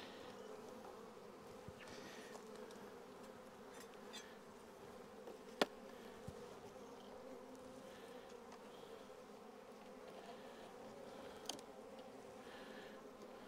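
Honeybees buzzing around an open hive: a faint, steady hum. A single sharp click stands out about halfway through.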